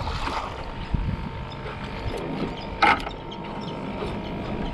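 Fishing reel being cranked, its mechanism clicking, with one sharp knock about three seconds in, over a low rumble.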